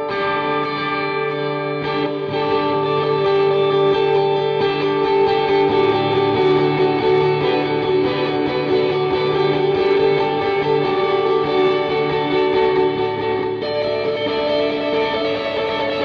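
Strat-copy electric guitar played through a Hotone Nano Legacy Siva Boogie amp head, with a Zoom G1Four multi-effects unit in the amp's effects loop, heard straight from the amp's line out. Held notes ring out, and new notes come in near the end.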